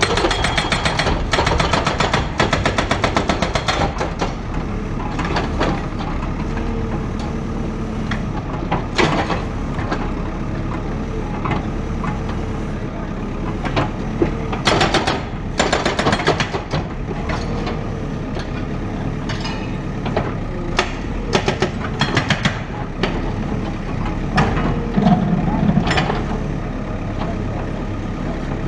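Heavy diesel demolition machinery running steadily, with a spell of rapid hammering in the first few seconds and many scattered knocks and crashes, loudest around the middle.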